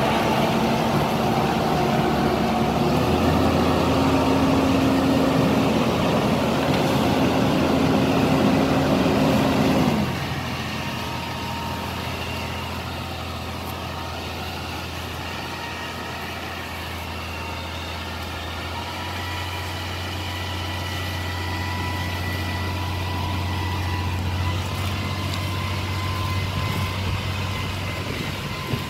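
Tree-service crane truck's engine running steadily. For about the first ten seconds a louder, higher-pitched engine runs over it, rising a little about three seconds in, then cuts off suddenly.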